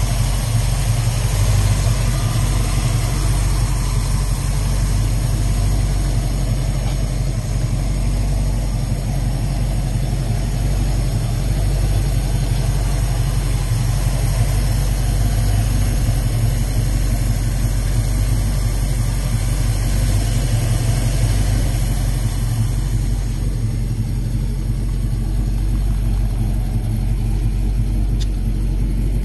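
1986 Chevrolet C-10's 383ci V8 idling steadily, a low, even running sound with no revving.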